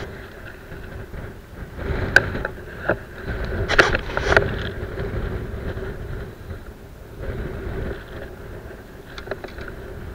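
Low rumble of wind on a body-worn camera's microphone, with jacket rustle and a few sharp clicks and knocks between about two and four and a half seconds in as a small caught fish is handled off the hook.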